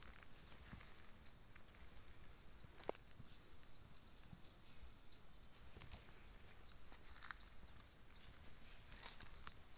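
Steady high-pitched chorus of crickets or similar insects, with scattered faint clicks and rustles in the grass.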